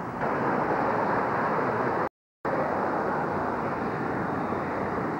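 Steady road and engine noise of a car driving, heard from inside the cabin. The sound cuts to silence for a moment about two seconds in, at an edit in the recording.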